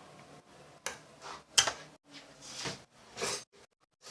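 A few separate clicks and knocks of a metal spoon being handled against a stainless steel saucepan, the sharpest one about one and a half seconds in.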